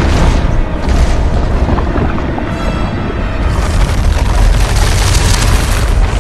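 Deep booming rumble of a cinematic fire scene with dramatic music. A brighter hissing noise joins about three and a half seconds in.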